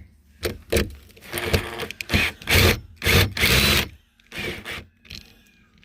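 Handling noises of a door handle being worked loose from the back of the door: a run of irregular scrapes and clatters of the handle hardware, bunched together in the middle, with two more near the end.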